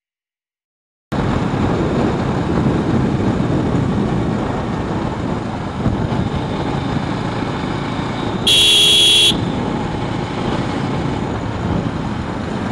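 Riding noise from a motorcycle on a highway: steady wind rush on the microphone with engine and road noise, starting abruptly after about a second of silence. About two-thirds of the way through, a vehicle horn sounds once, a single honk of just under a second.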